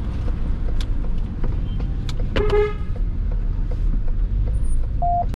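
Steady low rumble of a vehicle moving in traffic, with a car horn giving one short toot about two and a half seconds in.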